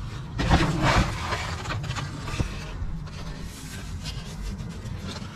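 A hand spreading and pressing expanded clay pebbles over potting soil in a plant pot: a gritty rustling and scraping, loudest in the first second, then quieter and scattered.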